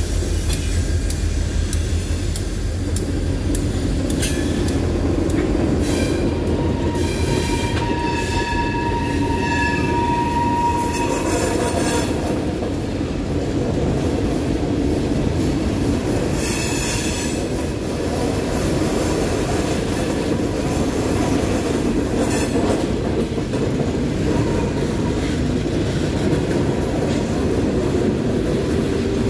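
Norfolk Southern coal hopper cars rolling past: a steady heavy rumble of wheels on rail, with squealing wheels that come and go, the longest squeal running from about eight to eleven seconds in. The deep throb of the RJ Corman diesel locomotive fades out over the first couple of seconds.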